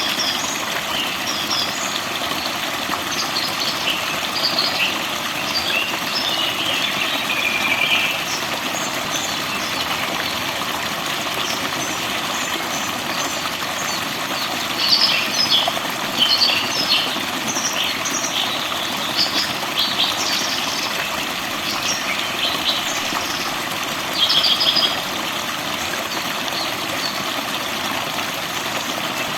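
Small forest birds chirping and twittering in short bursts, several sounding together at times, over a steady rush of flowing water.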